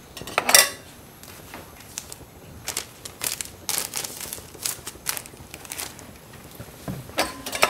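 Utensils clicking and scraping while dalgona sugar candy is made: a loud knock about half a second in, a run of sharp clicks in the middle, and another knock near the end.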